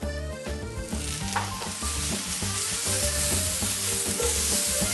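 Wild mushrooms frying in oil in a hot pan, sizzling steadily.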